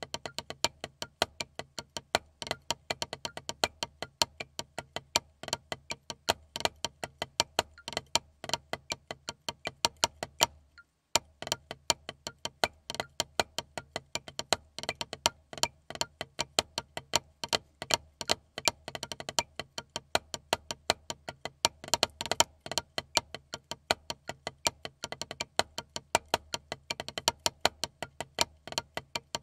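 Wooden drumsticks playing a rudimental snare-drum solo on a rubber practice pad: fast, crisp taps with louder accented strokes, with a brief pause about eleven seconds in.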